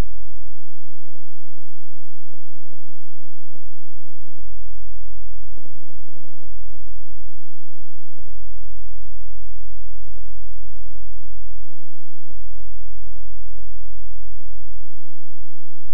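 Loud low rumble broken by irregular thumps.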